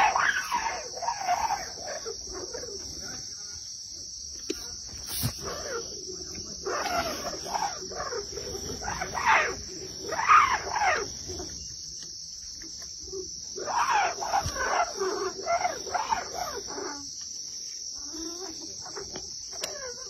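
Crickets chirping in a steady high drone, with louder irregular sounds coming and going in spells of a few seconds.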